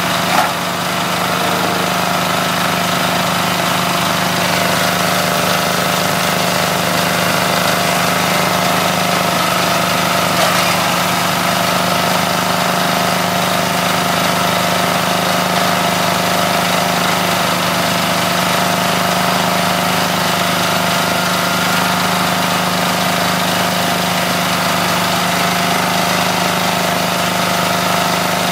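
Coconut husk shredder driven by a small single-cylinder engine, running steadily. A brief knock comes just under half a second in, and a fainter one around ten seconds in.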